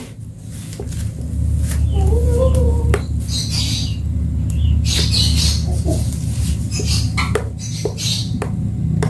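Metal spoon stirring a thick smoothie with chia seeds in a bowl: the spoon scrapes and clicks against the bowl, with a brief wavering squeak about two seconds in. A steady low hum runs underneath.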